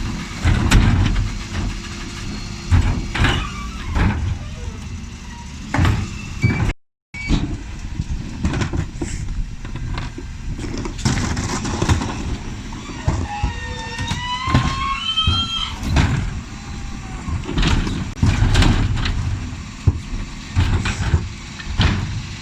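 Dennis Elite 6 refuse truck's engine running while its Terberg OmniDEKA lifter tips wheelie bins, with repeated loud bangs of bins and lift metal. A rising squeal comes a little past halfway.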